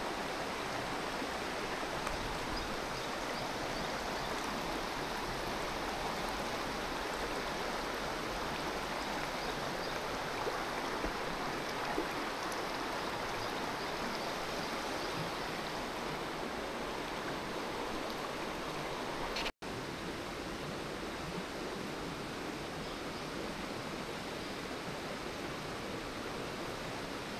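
Steady rushing noise like flowing water, with a few faint ticks; it cuts out for an instant about two-thirds of the way through, then carries on slightly quieter.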